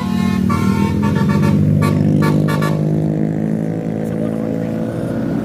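Tour bus's basuri telolet horn playing a tune: a run of held multi-tone notes, then quick stuttering toots, stopping about three seconds in. The bus engine runs steadily underneath.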